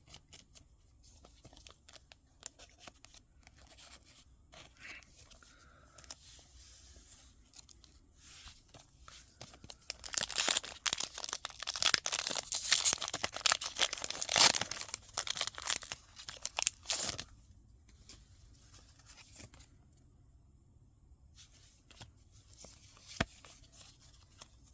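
A Pokémon booster pack's foil wrapper being crinkled and torn open: a few seconds of dense, crackling rustle about ten seconds in, with fainter handling of cards and packaging before and after.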